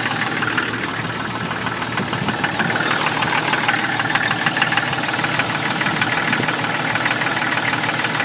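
1996 Jeep Cherokee's 4.0-litre inline-six running with a rapid, steady knock, which the owner thinks comes from inside the oil pan; it gets slightly louder about two and a half seconds in.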